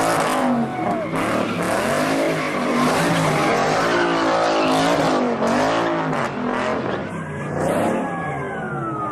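Car engine revving hard, its pitch rising and falling over and over as the car spins donuts, with the tyres screeching and spinning on the pavement. Near the end the engine note falls away.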